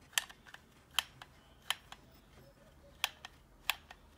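Hot glue gun being handled and worked, giving about five short, sharp clicks at uneven intervals.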